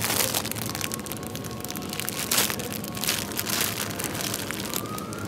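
Plastic packaging of a bag of fresh egg noodles crinkling and crackling in irregular bursts as it is grabbed and handled. A faint steady electronic tone comes in near the end.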